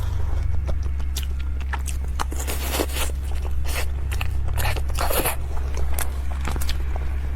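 Close-miked bites and chewing of a crispy dessert: a run of sharp crunches and crackles, heaviest about two and a half to three seconds in and again around five seconds, over a steady low hum.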